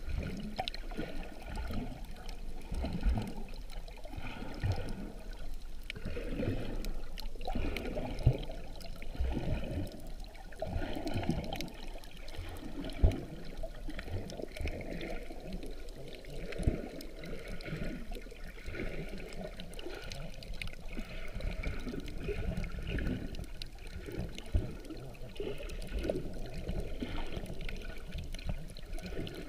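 Muffled underwater sloshing and bubbling of sea water around a submerged camera, irregular and shifting, with a few sharp knocks, the loudest about 8 and 13 seconds in.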